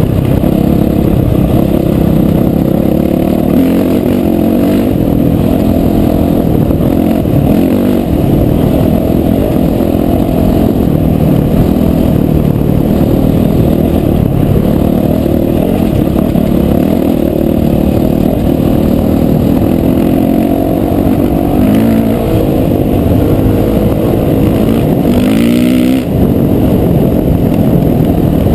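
Off-road motorcycle engine running while the bike is ridden over gravel. The engine note rises and falls with the throttle, with a quick run-up in revs about 25 seconds in.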